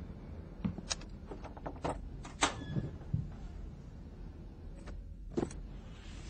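A metal locker door being opened, with a short scrape about two and a half seconds in, among a series of light clicks and knocks and a sharper knock near the end.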